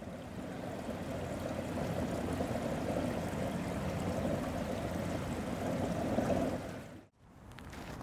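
Water running steadily in a stone fountain. It fades and cuts off about seven seconds in, followed by faint footsteps in snow.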